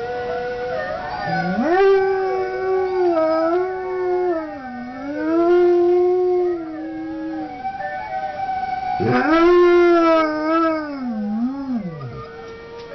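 Dog howling: one long howl of about six seconds, then after a short pause a second of about three seconds, each wavering up and down in pitch and dropping away at the end. A steady high held tone sounds underneath throughout.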